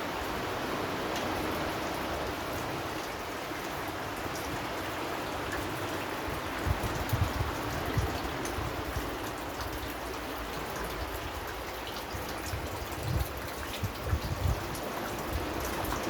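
Steady rain, with the tick of individual drops heard over an even hiss. From about six seconds in, irregular low thumps come and go.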